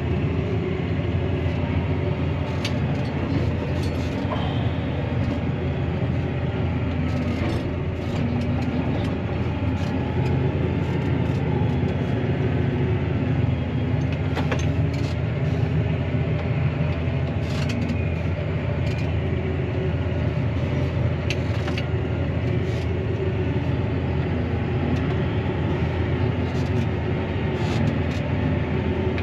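Claas Arion 650 tractor's six-cylinder diesel running steadily under load, heard from inside the cab while it drives over a silage clamp, with scattered sharp clicks and rattles.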